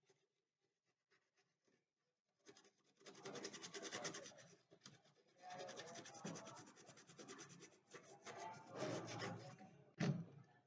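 Brush scrubbing a laptop motherboard wet with petrol, in quick back-and-forth strokes that begin about three seconds in, with a short pause midway. A single knock near the end.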